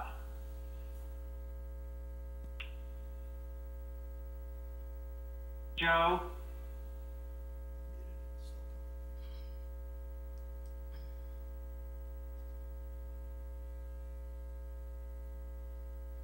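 Steady electrical mains hum on the audio feed, one low tone with a ladder of evenly spaced overtones, holding level throughout, with a few faint clicks.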